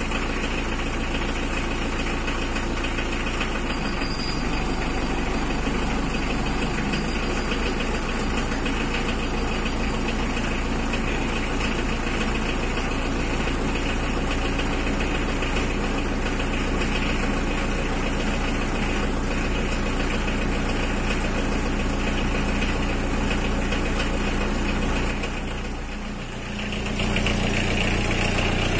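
Mitsubishi L300 pickup running in third gear with its jacked-up rear wheel driven off the ground: a steady drone of engine and drivetrain, run so that any rumble from a worn rear wheel bearing or differential can be heard. It drops briefly near the end, then comes back.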